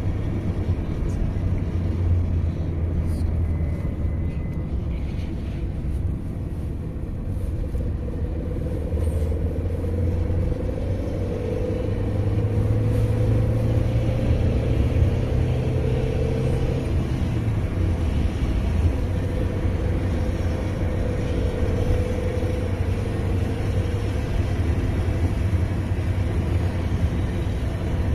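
An engine running steadily with a low rumble, growing louder and a little higher in pitch for a few seconds in the middle.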